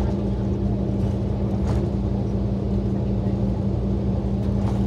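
City transit bus heard from inside the passenger cabin while driving: a steady engine and drivetrain hum over road noise, with a brief faint rattle about two seconds in.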